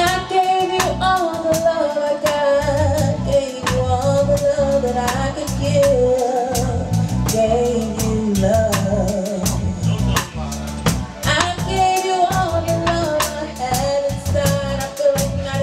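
A band playing: a singer's voice carrying a sung melody over a drum kit's steady beat and a bass line.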